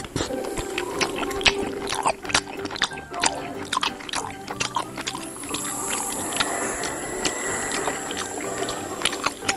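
Close, wet mouth sounds of ice cream being licked and slurped: many small smacking clicks and sucking noises.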